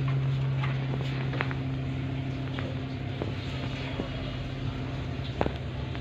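A steady low hum runs through, with a few sparse sharp clicks as a parakeet eating bread works its beak and feet on a wire cage. The sharpest click comes about five and a half seconds in.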